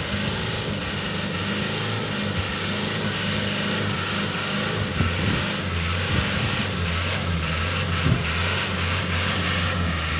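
Hino 4x4 truck's diesel engine running steadily with noise from the truck moving over rough ground, and a sharper knock about eight seconds in.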